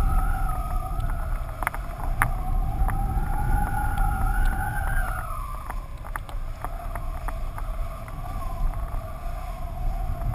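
Wind rushing over a camera mounted on a flying kitesurf kite: a heavy low rumble with a wavering whistle above it that dips and weakens about five and a half seconds in, and scattered sharp clicks.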